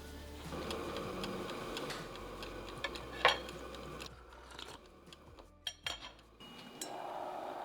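Kitchen handling sounds: dishes or metal cookware knocked and set down, with one sharp clink about three seconds in and a few lighter knocks later.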